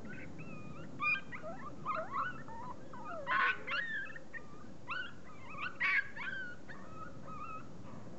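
Beagle puppies about 40 days old whimpering and yipping in short, high, wavering squeals as they wrestle in play. The loudest yelps come about a second in, around three and a half seconds, and near six seconds.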